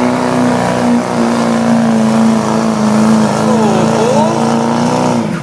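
Chevrolet Duramax diesel pickup engine held at high, steady revs under heavy load while pulling the weight sled, then dropping off suddenly near the end.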